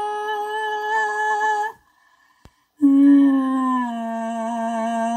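A boy's voice holding long hummed notes into the mouth of a large plastic bottle: a higher note for nearly two seconds, a brief gap, then a lower note that slides down slightly and holds.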